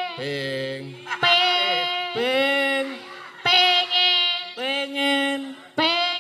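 A sinden (Javanese female vocalist) singing into a microphone: about six short, drawn-out sung phrases with brief breaks between them.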